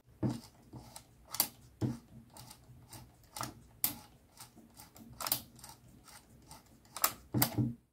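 Film-advance knob of a Flexaret IVa twin-lens reflex camera turned by hand, its winding mechanism giving a string of irregular, quiet clicks and ratchet ticks as 35 mm film is wound on.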